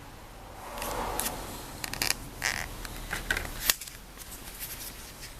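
Hands working with small objects at a workbench: a soft rustle about a second in, then a run of sharp clicks and scrapes, ending in one louder snap.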